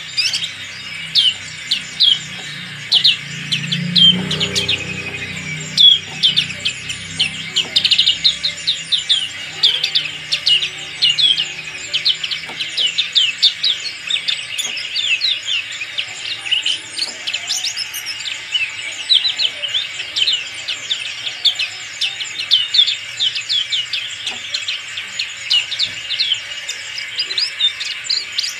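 Black-capped white-eye singing: a fast, unbroken run of high, thin chirps, each note a quick downward sweep.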